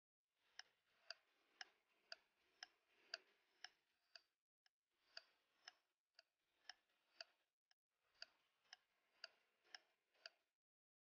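Faint clock-ticking sound effect, about two even ticks a second, with two short breaks partway through.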